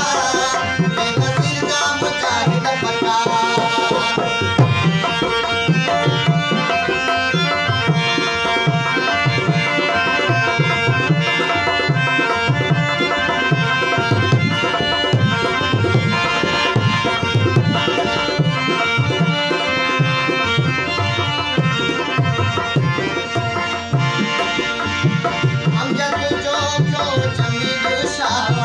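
Live Sindhi folk music: harmoniums sounding held, reedy chords over a steady hand-drum rhythm, with male voices singing.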